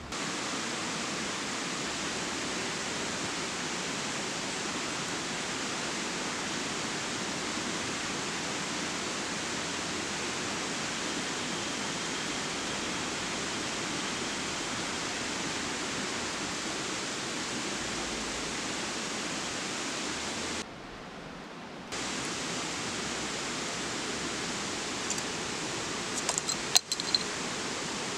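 Steady rush of a shallow rocky river flowing over rapids, an even hiss of water that drops quieter for about a second roughly three quarters through. A few sharp clicks and knocks near the end.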